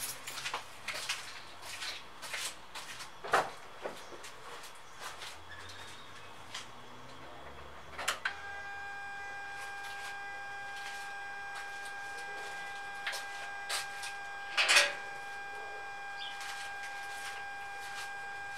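A steady high-pitched buzzing tone, like a piezo buzzer, from the throttle position sensor of a 2006 Mitsubishi Endeavor, which the owner traces to that sensor. It starts with a click about eight seconds in, after some scattered clicks and knocks, and holds steady, with a single loud knock near the end.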